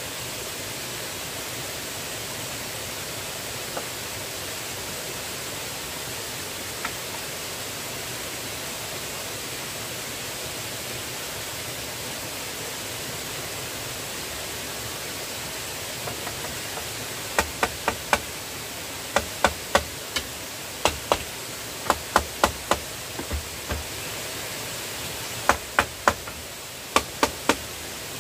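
A steady rushing hiss, with sharp knocks from about two-thirds of the way through, coming in quick runs of three or four: tool blows on wood or bamboo.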